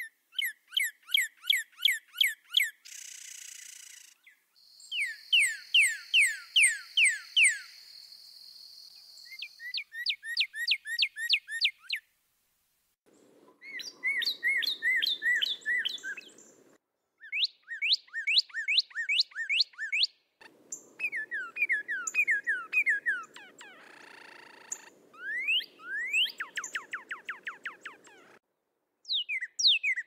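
Male cardinals singing: several phrases of rapid, repeated down-slurred whistled notes, separated by short pauses.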